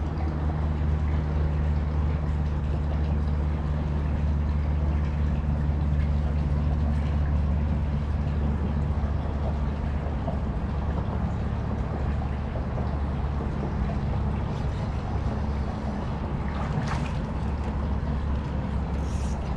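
A steady, low engine hum runs throughout over a light wash of water noise, with a few short sharp clicks near the end.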